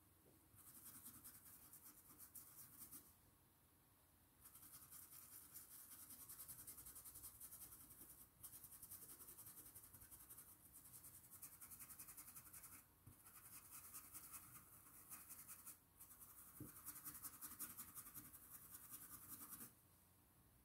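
Faint, fast scratchy scrubbing of a paintbrush working fabric paint into cloth, in several stretches of a few seconds with short pauses between.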